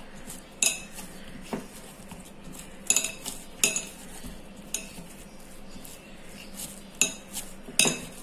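Hands kneading oiled beetroot dough in a clear patterned bowl, with about seven sharp, irregular clinks as the bowl and the bangles on the wrists knock together.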